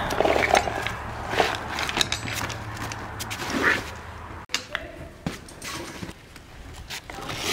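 Rustling and light knocks of plastic grooming brushes and rubber grooming gloves being handled and packed into a fabric grooming bag. A steady low hum runs under the first half and stops about four and a half seconds in.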